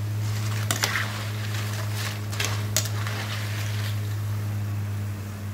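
Potato slices frying in a pan of oil with a faint sizzle, stirred with a wire mesh skimmer that clinks against the pan a few times, about a second in and twice between two and three seconds in. A steady low hum runs underneath throughout.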